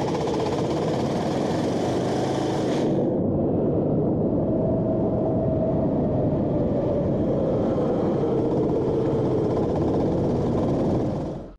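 Go-kart engine running steadily while the kart laps a wet track, heard onboard. About three seconds in, the sound turns noticeably duller as its high end drops away.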